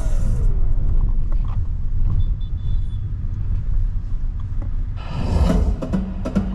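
Low, steady rumble of the 2024 Hyundai Alcazar diesel SUV being driven: engine and road noise. Music comes in about five seconds in.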